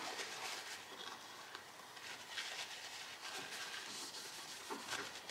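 Faint rubbing and rustling of a paper towel wiping silicone sealant on a small metal bracket, with a few soft handling noises.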